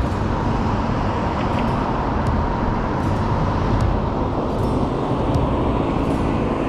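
Steady city road traffic: motor vehicles, including a truck, passing through an intersection.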